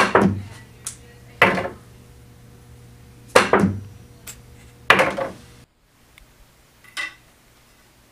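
Pool cue striking a ball, followed by sharp clacks of the ball knocking off the rails and bed of a pool table. There are about six clacks over five seconds, the sound cuts off abruptly, and there is one faint click near the end.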